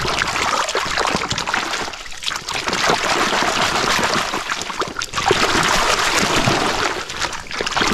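Muddy water splashing and sloshing without a break as a hand swishes a toy truck back and forth through it to wash it clean.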